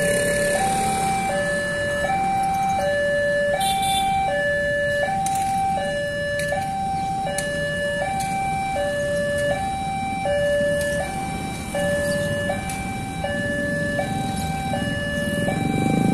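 Railway level-crossing warning alarm sounding, an electronic two-tone signal alternating steadily between a higher and a lower pitch about every three-quarters of a second, warning that a train is approaching. A low rumble of traffic underneath grows louder near the end.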